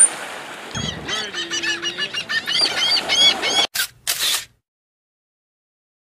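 Bottlenose dolphins calling in a rapid run of chirps, each rising and falling in pitch, for about three seconds after a splash. A couple of short bursts of noise follow, then the sound cuts off abruptly.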